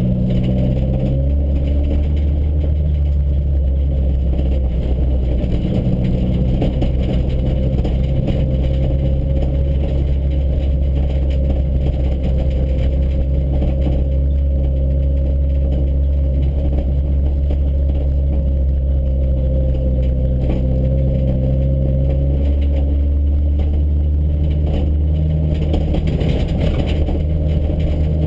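Car engine and tyre noise heard from inside the cabin while driving on a dirt track: a steady low drone whose engine note shifts about a second in and again about 22 seconds in.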